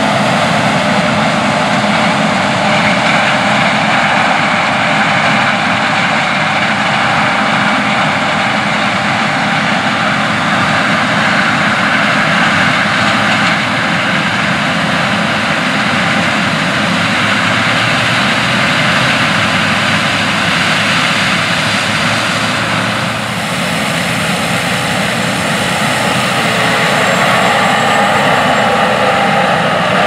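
Steady drone of a John Deere S780 tracked combine harvesting corn, with a steady whine on top. A tracked tractor pulling a grain cart runs alongside. The level dips briefly about 23 seconds in.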